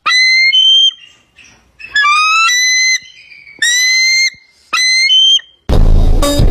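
Four clear whistled calls, each lasting under a second with short gaps between, some steady and some rising slightly in pitch. Music cuts back in near the end.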